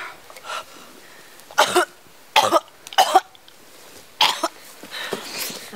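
A girl coughing in several short, harsh fits about a second apart, then breathing raggedly near the end; the coughing of a girl sick with the disease.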